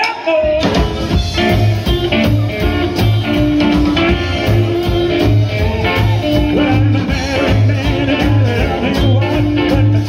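Live rockabilly band playing: upright double bass, drums, electric guitars and steel guitar. The full band comes in loud about half a second in, over a steady bass rhythm.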